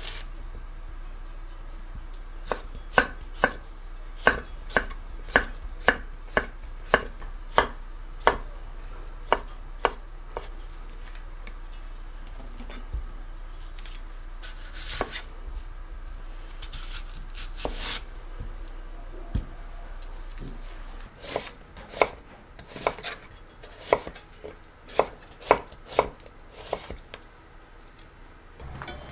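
Kitchen knife slicing a red bell pepper into thin strips on a wooden cutting board, the blade tapping the board about twice a second. Then it cuts through an onion and slices it, with another run of taps near the end.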